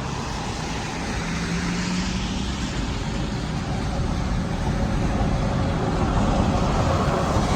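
Road traffic in the rain: a steady hiss with a low engine hum, growing slowly louder.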